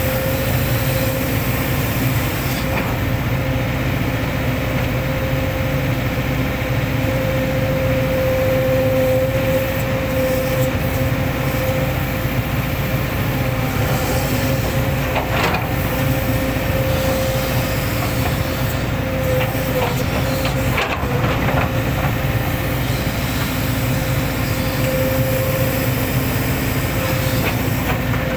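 Hitachi hydraulic excavator's diesel engine and hydraulics running steadily under work, with a constant high whine over the engine note. A couple of brief knocks come about halfway through.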